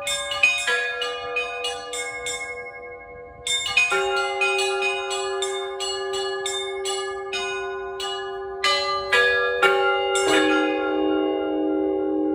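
Cathedral bells rung by a bell ringer: rapid strokes on small high bells over longer-ringing lower bells. The strokes break off briefly about two seconds in and resume with a deeper bell. After the last strokes about ten seconds in, the bells ring on.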